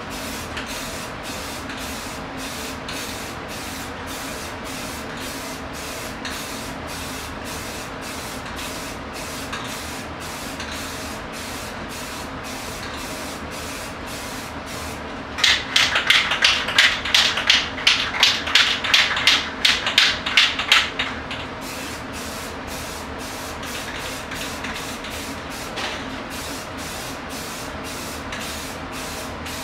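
Aerosol spray paint hissing onto a canvas. For about six seconds midway it comes as a run of loud, short, evenly spaced bursts, about three a second.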